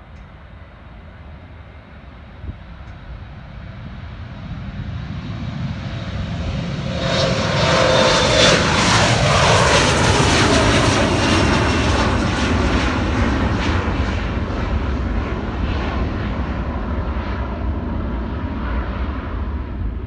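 Twin-engine jet airliner taking off: its engine noise builds, peaks about eight to twelve seconds in with a whine falling in pitch as it passes, then slowly fades.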